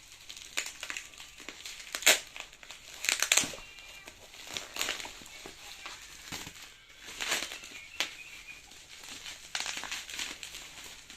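Parcel packaging crinkling and rustling in irregular bursts as it is unwrapped by hand, with a sharp crackle about two seconds in and a cluster of crackles about a second later.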